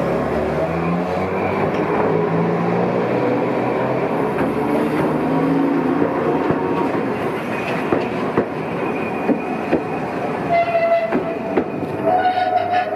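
Iyotetsu streetcars running through a tram stop. Motor whine glides up and down in pitch over the first several seconds, then the wheels click sharply over rail joints and points. A steady high tone sets in about ten seconds in.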